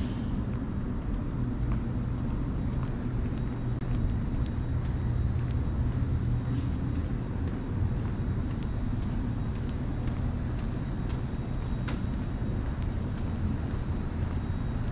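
Outdoor ambience: a steady low rumble, with a faint high steady whine through most of it and a few faint ticks.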